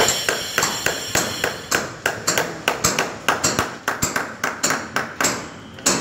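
A hammer tapping a small metal fitting on a cable, a quick, regular run of ringing blows that speeds up after about two seconds.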